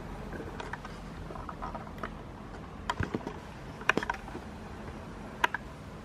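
Handling noise from a plastic desk fan's motor housing being held and turned: scattered light clicks and knocks, a few in quick succession about three and four seconds in, over a faint steady hum.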